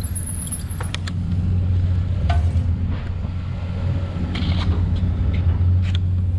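Steady low rumble of riding along a paved path, with a few light clicks and rattles scattered through it.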